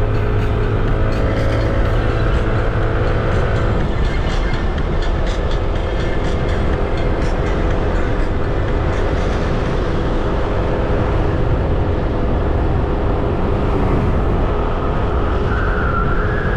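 Yamaha Nmax 155 scooter's single-cylinder engine running under way, under a steady rush of wind and road noise. The engine note changes about four seconds in.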